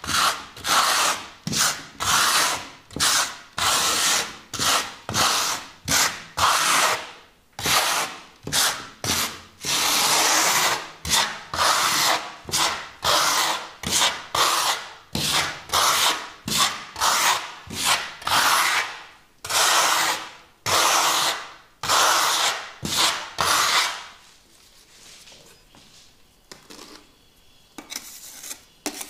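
Stainless steel trowel scraping wet architectural concrete plaster across a wall in quick repeated strokes, roughly two a second, with a few longer sweeps, spreading and smoothing it thin. The strokes stop about four fifths of the way in, leaving a few faint knocks.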